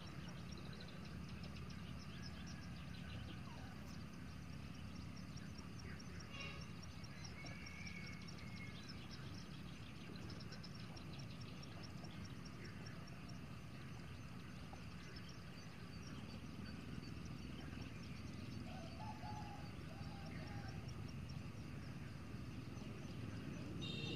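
Outdoor ambience: a steady low rumble with faint, scattered bird chirps and high ticking, and a short warbling call about eight seconds in.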